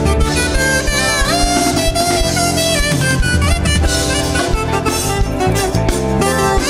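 Alto saxophone playing a solo melody with sliding bends in pitch, backed by a band with bass and drums.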